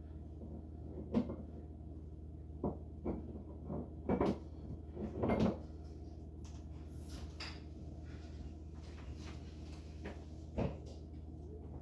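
A scattering of short knocks and clunks, the loudest bunched about four to five and a half seconds in, as refrigerator door handles and their hardware are handled and fitted to the doors.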